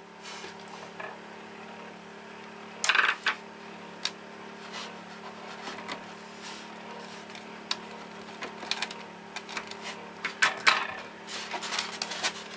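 Hands fitting an STC-1000 digital thermostat and its wiring into a styrofoam incubator lid: scattered clicks and rustles of plastic and wire, with a louder clatter about three seconds in and another late on. A steady low hum runs underneath.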